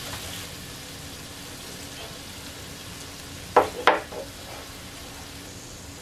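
Cubes of hanwoo beef striploin sizzling on an electric grill pan, a steady frying hiss. About three and a half seconds in, two short sharp clacks sound close together.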